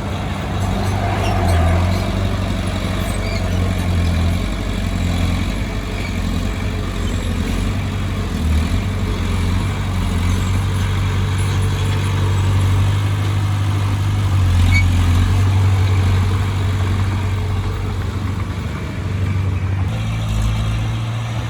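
Bulldozer's diesel engine running steadily at working speed, a low drone that swells and eases slightly as the machine works.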